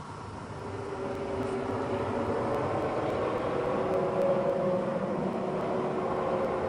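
A steady engine-like drone with a couple of held tones, growing louder over the first couple of seconds and then holding steady.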